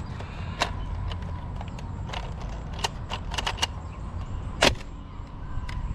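Plastic clicks and rattles of a Nerf foam-dart blaster being handled and reloaded. The clicks are scattered and sharp, with a quick run of several around the middle and the loudest about three-quarters of the way in, over a low steady rumble.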